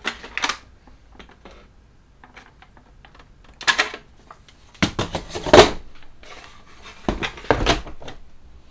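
Hard plastic model kit parts being handled and set back in the kit box: scattered clicks, rustles and knocks, loudest about five and a half seconds in, with a dull knock about seven and a half seconds in.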